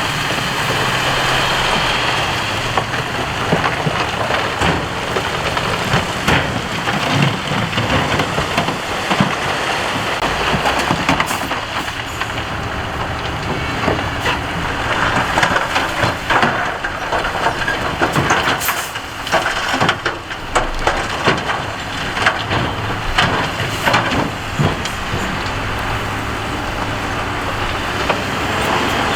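Heavy earthmoving machine's engine running under load, with a continuous gritty clatter and crunch of rock and gravel being moved. Sharp knocks of stones come throughout.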